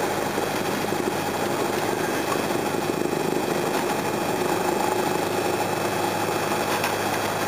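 Single-engine light aircraft's piston engine and propeller, heard from inside the cockpit, running steadily while the plane taxis onto the runway.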